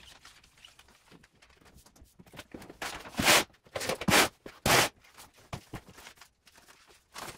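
Vinyl decal sheets having their backing paper peeled off and handled: short rustling, tearing swishes of paper and vinyl, the loudest three close together about three to five seconds in and one more near the end, with quieter handling noise between.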